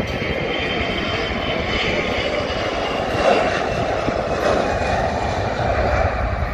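Jet engines of a narrow-body twin-engine airliner at takeoff power on its takeoff roll: a steady noise with a high whine sliding slowly down in pitch. A deeper rumble swells near the end.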